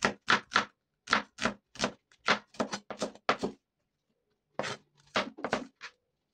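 A cleaver chopping red onion on a cutting board: quick, separate knife strikes about three or four a second, with a pause of about a second past the middle before the chopping picks up again.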